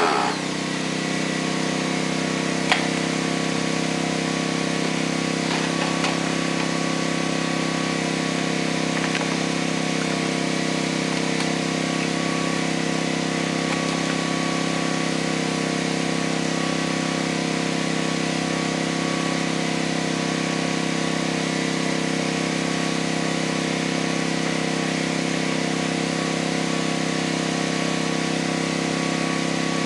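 A small engine running steadily at an even pitch, with a single knock about three seconds in.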